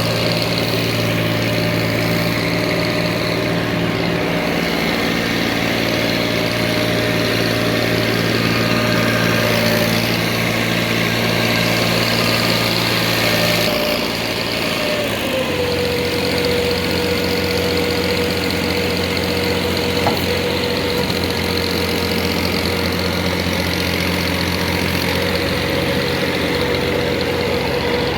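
TMR feed mixer machine running steadily under power; about halfway through its pitch drops slightly and then holds steady again.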